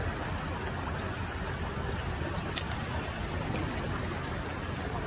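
Floodwater rushing steadily, a continuous even roar of water.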